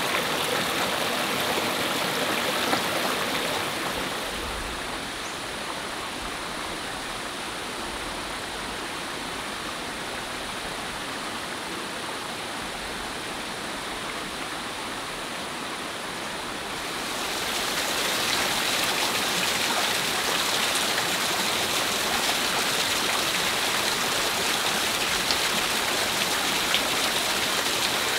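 Water of a small rocky stream and waterfall rushing steadily over rocks. About four seconds in it drops to a softer, duller rush, and it grows louder and brighter again about seventeen seconds in.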